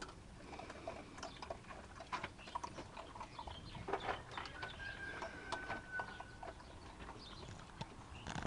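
Thai Ridgeback puppies crunching dry kibble from a shared bowl: a run of irregular small crunches and clicks.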